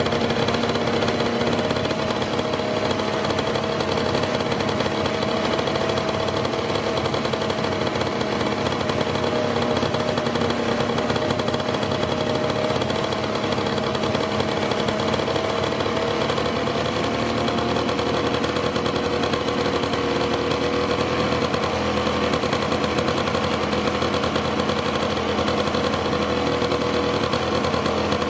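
Honda Super Dio's 50 cc two-stroke scooter engine idling steadily, warmed up, while its carburetor adjusting screw is turned; the idle note shifts slightly about halfway through.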